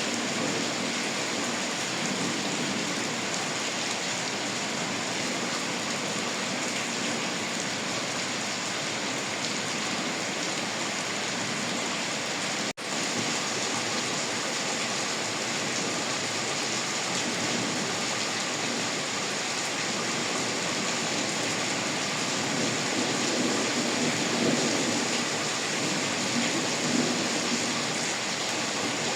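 Rain falling steadily in a dense, even hiss, with a momentary break in the sound about thirteen seconds in.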